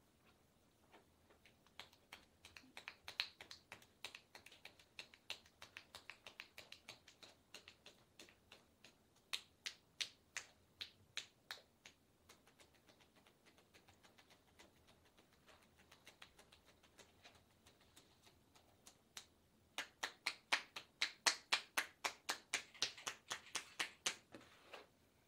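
Percussive hand-chopping massage on a bare forearm, with the hands pressed together in prayer position, giving rapid sharp clicking taps. A run of taps lasts about ten seconds, then comes a sparse stretch, then a faster, louder flurry of about six taps a second near the end.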